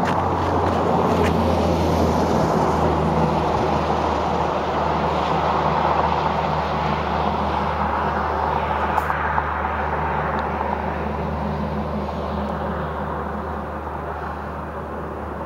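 Steady traffic noise from a nearby highway: tyres and engines of passing cars and trucks blending into a continuous rumble with a low hum, easing off a little near the end.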